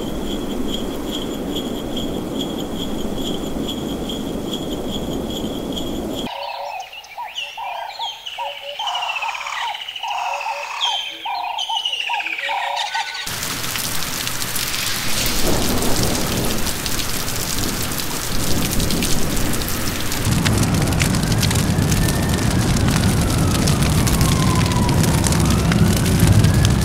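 A run of edited ambient sound effects: first a steady hiss with a high ringing tone, then a few seconds of chirping calls, then heavy rain falling, which near the end has a low rumble under it and a siren sweeping up, down and up again.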